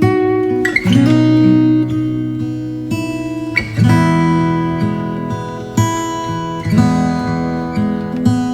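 Music on a plucked string instrument, like an acoustic guitar: chords struck every second or two and left to ring.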